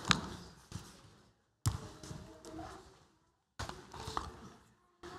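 Scattered knocks and thumps with a faint murmur of people moving about a room, the sound cutting out completely between them several times.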